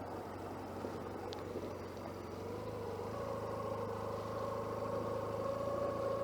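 Motorcycle running on the road, its engine and road noise picked up by a microphone inside the rider's jacket pocket. A steady whine rises slightly in pitch and grows a little louder from about two and a half seconds in.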